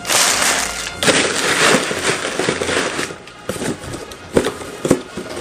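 Packing paper and wrapping crinkling and rustling as it is handled and pulled out of a cardboard box, loudest in the first three seconds, then a few sharp knocks.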